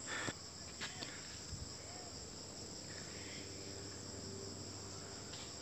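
Insects in the surrounding vegetation giving a steady, high-pitched chirring chorus.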